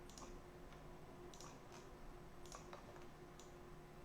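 Faint, irregular computer mouse clicks, about six, some in quick pairs, as a part is moved point to point in CAD software.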